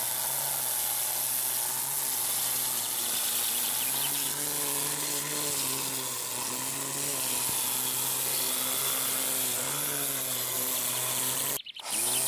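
AL-KO GT 2025 cordless string trimmer running steadily, its battery-powered electric motor humming under a hiss from the spinning line cutting grass and dandelions. The sound cuts out briefly near the end, then resumes.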